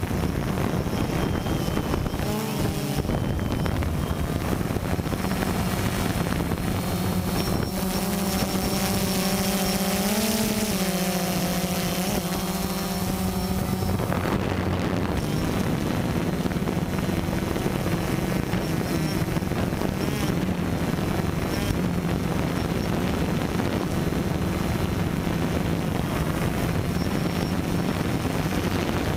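Multirotor drone's electric motors and propellers whirring steadily, heard from the drone's own camera, with a brief rise in pitch about ten seconds in. Wind rushes over the microphone.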